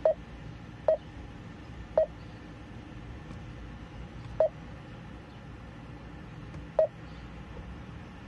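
Garmin GPS navigator's touchscreen beeping as it is tapped: five short, identical single-pitch beeps, irregularly spaced, each one confirming a touch as the map is zoomed and scrolled. A low steady hum sits underneath.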